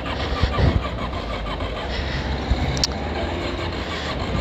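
Suzuki quad's engine running at low speed in stop-and-go traffic, an engine that has been stalling on its rider. A short sharp click comes about three seconds in.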